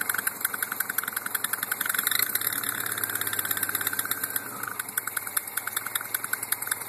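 MGB's 1.8-litre B-series four-cylinder engine running with a rapid fluttering clack, a fast string of clicks over the engine's hum that changes with engine speed. The noise's source is unknown: a mechanic's stethoscope found nothing at the intake and exhaust manifolds, water pump, timing chain cover, alternator, carburettor base or tappet cover.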